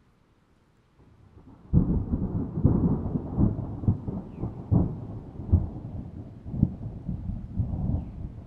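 A deep rolling rumble that swells faintly about a second in, then breaks in suddenly and loudly, with repeated sharp cracks over a continuous roll, easing off near the end.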